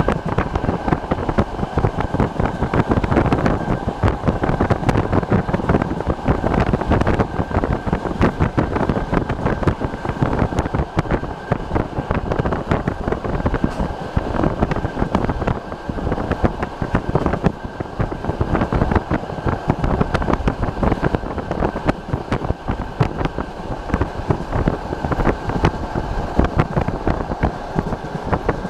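Passenger train running at speed on the Trans-Siberian line, heard from inside a carriage: wheels clicking and rumbling over the rails under a steady rush of wind over the microphone, with a faint steady high tone.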